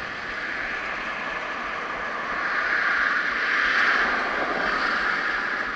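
Steady rushing noise of a bicycle ride heard from a bike-mounted camera: wind over the microphone and tyre noise on the asphalt, swelling about three seconds in and easing near the end.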